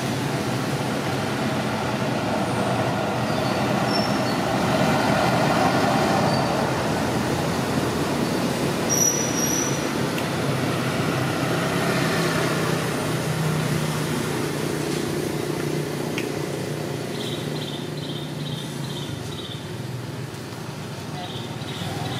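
Steady background rumble of passing motor traffic, an engine hum that swells about a quarter of the way in and fades slowly. Near the end, twice, a high chirping call repeats about five times a second.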